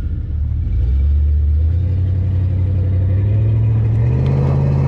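A vehicle engine revving up under load, its pitch climbing in two steps and holding at high revs, as it strains to drag a stuck SUV out of a ditch.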